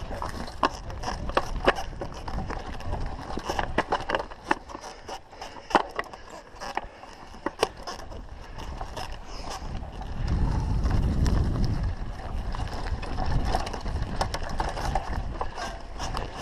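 Mountain bike riding down a dirt forest singletrack: frequent sharp clicks and rattles from the bike over the rough trail, over steady tyre noise. There is a louder stretch of low rumble about ten seconds in.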